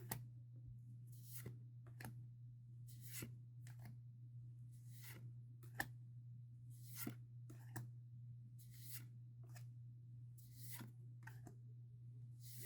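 Pokémon trading cards handled and moved one at a time: faint swishes and light clicks about once a second, over a steady low hum.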